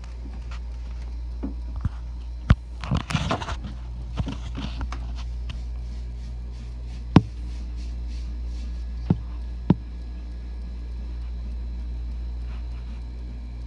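Steady low hum of turtle-tank equipment, with a few sharp clicks and knocks scattered through and a brief rustle about three seconds in.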